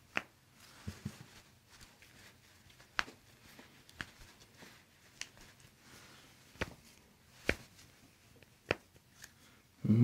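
Hands gripping and moving a patient's arm on an adjusting table: scattered light clicks and taps with soft rustles of skin and clothing, about eight separate clicks a second or so apart.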